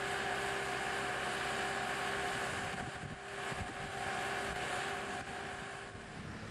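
Marine travel lift's engine and hydraulics running steadily with a whine, mixed with wind noise on the microphone. The whine fades out about five seconds in.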